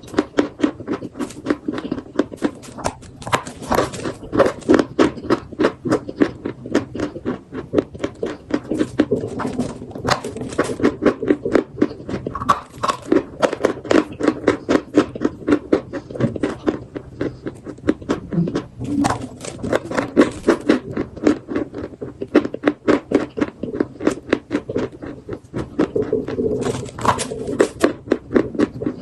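Chalk being chewed: a steady run of crisp crunches, about three or four a second.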